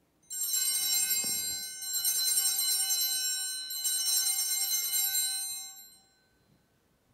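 Altar bells rung three times during the elevation of the chalice at the consecration, each ring a bright, many-toned jangle. The rings fade away about six seconds in.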